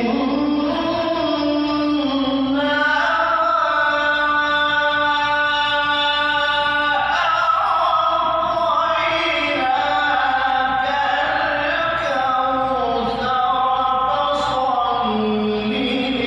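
A man's voice reciting the Qur'an in melodic Arabic chant through a handheld microphone, holding long notes that glide and turn between pitches.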